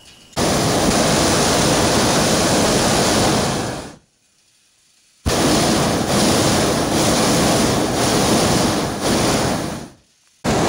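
Hot-air balloon's propane burner firing in blasts: a loud, even roar of about three and a half seconds, a pause of about a second, a second blast of about five seconds, and a third starting at the very end, each cutting on and off sharply.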